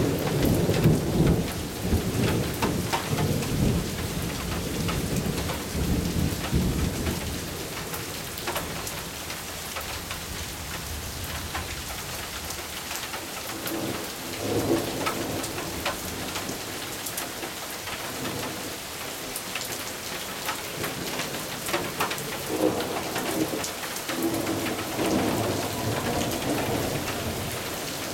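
Steady rain with rolling thunder. A heavy rumble at the start dies away over about eight seconds, and softer rumbles swell again about halfway through and near the end, over the constant hiss and patter of the rain.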